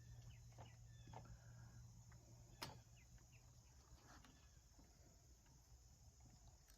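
Near silence: faint scattered clicks and ticks over a steady low hum, with one sharper click about two and a half seconds in.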